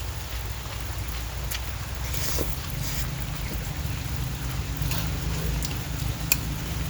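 Steady rain falling, with a low rumble underneath and a handful of sharp drops tapping close by.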